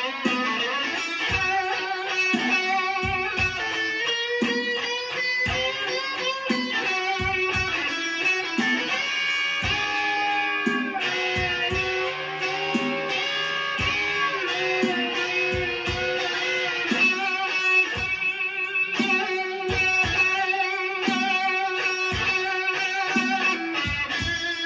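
Stratocaster-style electric guitar playing a slow blues lead, with held, bent notes that waver with vibrato.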